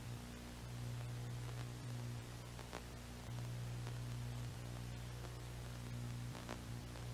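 Quiet steady low hum under an even hiss, the hum dropping out briefly a few times, with a few faint clicks.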